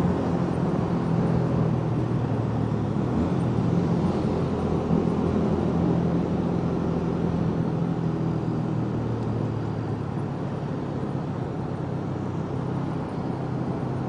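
Honda CB150R's single-cylinder engine running at steady low revs while riding slowly in traffic, over road and wind noise; it eases off a little in the second half.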